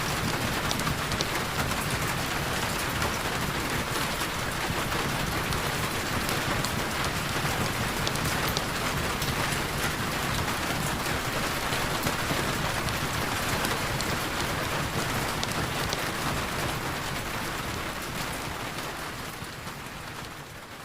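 Heavy rain falling steadily, a dense hiss of drops, fading out gradually over the last few seconds.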